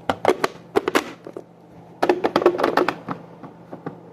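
Rapid clicks and knocks of hard objects being handled, in two quick clusters: one at the start and one about two seconds in.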